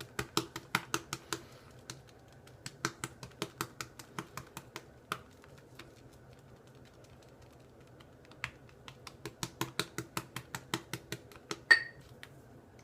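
Boar-bristle shaving brush whipping soap lather in a glass bowl: quick wet clicking and popping strokes, about five a second, in runs with pauses between. One louder ringing clink of glass near the end.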